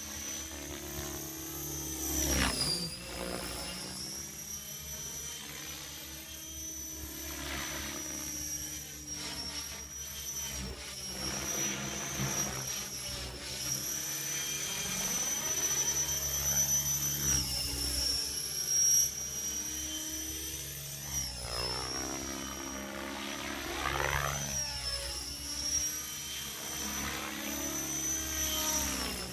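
Align T-Rex 600 electric RC helicopter in flight: a high, steady whine from its motor and drive, with a low steady rotor hum underneath. The whine's pitch dips briefly now and then as it manoeuvres.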